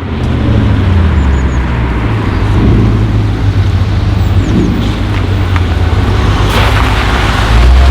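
Audi RS6 C7's twin-turbo V8 through a Milltek exhaust, running at a steady low pitch with a deep rumble, and a few sharp crackles in the second half.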